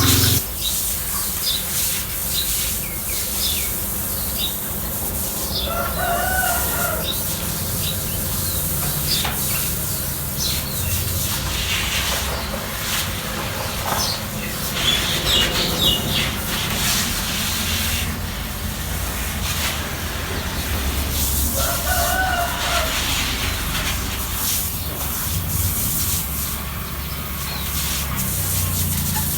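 A rooster crowing twice, the calls some fifteen seconds apart, over a steady background noise with small birds chirping.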